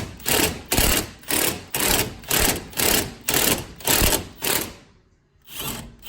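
Impact wrench run in short, rapid bursts, about three a second, backing out a rusty fuel-tank strap bolt; it stops about five seconds in.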